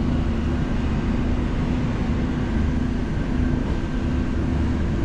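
Steady rumble of a moving vehicle heard from inside, with a constant low hum over it and no change in pace.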